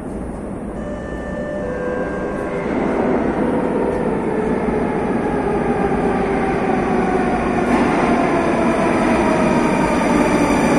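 Moscow Metro train pulling into the station, its rumble swelling louder from a few seconds in. A falling whine from the train slowing down runs through the second half.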